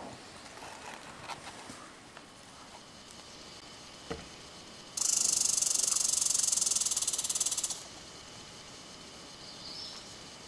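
A loud, high-pitched rasping hiss with a fine rapid flutter, lasting almost three seconds and starting and stopping abruptly, after a single short knock.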